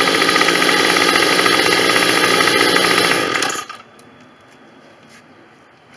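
Two small two-stroke string trimmer engines, a Troy-Bilt and an older Homelite, running together at a steady speed. The sound cuts off abruptly about three and a half seconds in, leaving only faint background.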